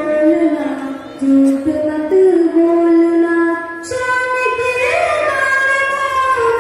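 Young girls singing an Urdu naat (devotional poem praising the Prophet) in long held, gliding notes, the melody rising higher about four seconds in.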